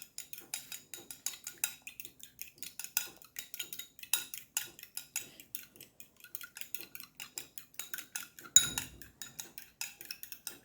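A raw egg being beaten in a bowl, a utensil clicking quickly against the bowl's side at several strokes a second, with one louder knock about eight and a half seconds in.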